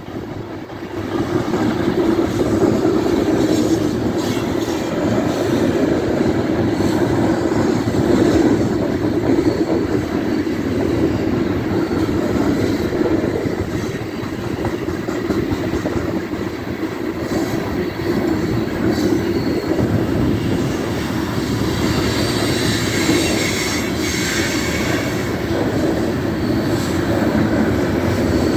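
Loaded coal train's cars rolling past on the rails: a steady rumble of wheels on track with some clickety-clack. A thin high wheel squeal comes in for a few seconds near the end.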